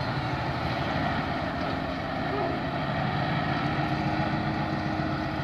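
Nissan Diesel V8 dump truck's diesel engine running steadily as its tipper body lowers back down after dumping.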